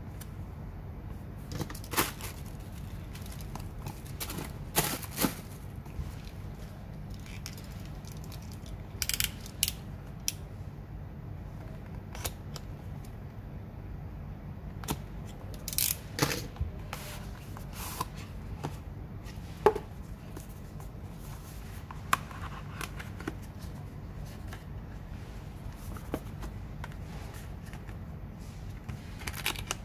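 Cardboard smartphone box being handled and opened: a cutter slitting the seal, with scattered short clicks, scrapes and rustles of the cardboard and lid. A steady low hum runs underneath.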